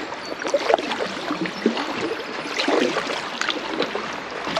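River water trickling and splashing around an inflatable packraft, with irregular splashes from paddle strokes.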